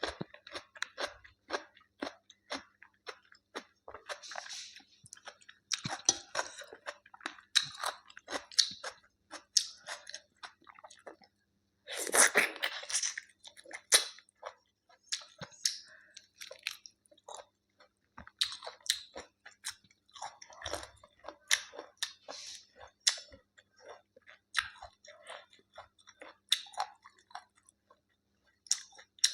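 A person eating close to the microphone: many short, wet chewing clicks and crunches, with a longer, louder stretch of chewing about twelve seconds in.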